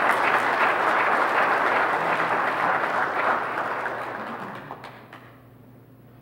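A congregation applauding. The clapping fades away about five seconds in, leaving quiet room tone.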